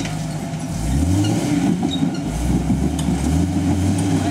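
Jeep engine revving under load on a rock climb. Its pitch rises about a second in and stays louder, with the revs going up and down after that.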